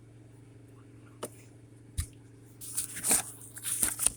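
Handling noise from small parts, most likely the old and new ignition switches being turned over for comparison: a couple of sharp clicks, then rustling and scraping from about two and a half seconds in, over a steady low hum.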